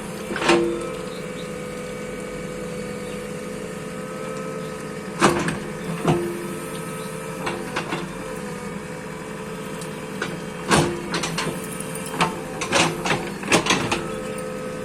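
Bulldozer's diesel engine running steadily, with sharp metallic clanks and knocks from the working machine at intervals, several in quick succession near the end.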